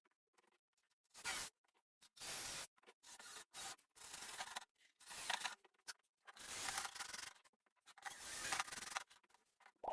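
Intermittent scraping and rubbing in short strokes, each lasting a fraction of a second to about a second, with brief pauses between them.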